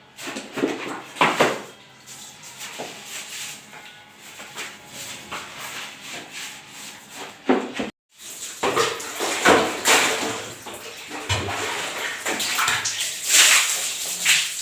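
Water running and splashing during household cleaning, in irregular surges with a few knocks, broken by a brief dropout about eight seconds in.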